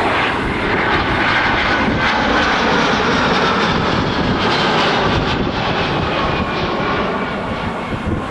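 Airliner's engines passing close on landing approach, a loud steady rush with a high whine that falls slowly in pitch as the aircraft goes by.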